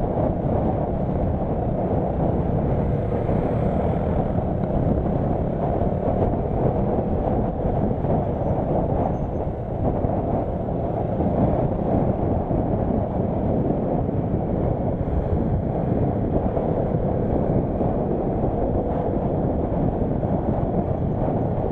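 Passenger train running on the Nilgiri Mountain Railway, heard from aboard: a steady running noise of the carriage on the rails.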